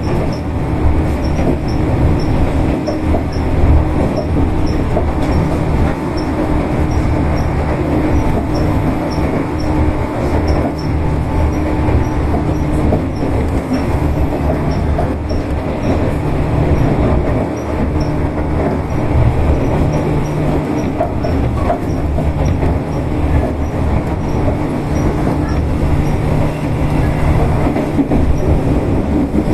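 Tobu 8000 series electric train running at a steady speed: a continuous rumble of wheels on rail with a steady motor hum and light rhythmic clicking.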